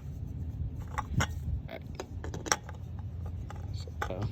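Scattered light clicks and knocks of hands handling things, over a steady low hum.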